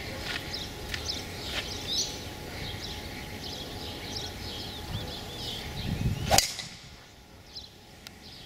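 A golf club striking a ball off the tee: one sharp crack about six seconds in, with a low whoosh building just before it. Birds chirp throughout.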